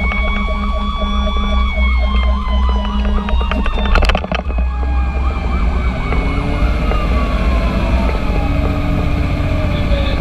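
Fire engine siren sounding over the steady rumble of the truck's engine. A fast, evenly pulsing siren tone runs through the first half, a short burst of clicks comes about four seconds in, and a long siren tone slowly falls in pitch through the second half.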